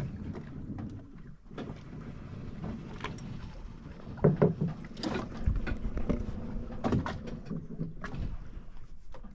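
Water sloshing and splashing around a sailboat's stern and swim platform, with scattered knocks and clicks, the loudest about halfway through.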